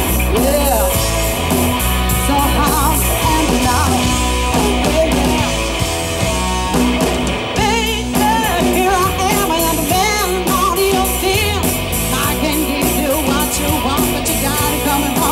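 A live rock band playing loud through a PA: electric guitars, bass and drum kit, with a woman singing over it.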